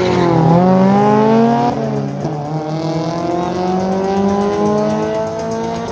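Toyota MR2 and Nissan Juke accelerating hard from a drag-race start. The engine revs climb, drop at a gear change about two seconds in, then climb again as the cars pull away.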